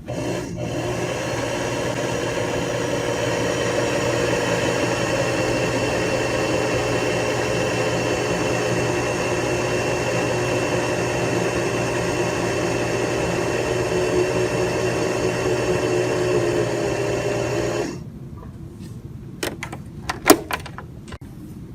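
Electric sewing machine's motor running steadily under the foot pedal, winding thread onto the bobbin; it stops suddenly after about eighteen seconds. A few clicks and knocks of handling follow near the end.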